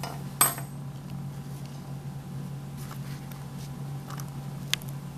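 A steady low hum with a sharp knock about half a second in, a few light ticks, and a second sharp knock near the end.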